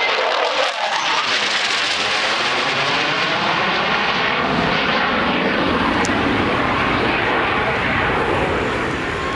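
Jet aircraft flying past, its engine noise loud and steady, with a slow sweeping, phasing shift in tone as it passes.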